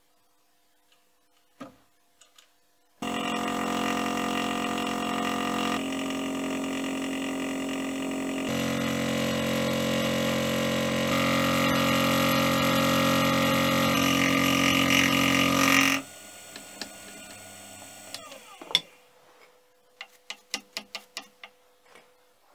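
Milling machine spindle running with a small endmill cutting a pocket in a metal toolholder: a loud, steady ringing whine mixed with cutting hiss that shifts in tone every few seconds. It starts abruptly about three seconds in and stops abruptly around sixteen seconds, followed by a sharp knock and a quick run of light clicks near the end.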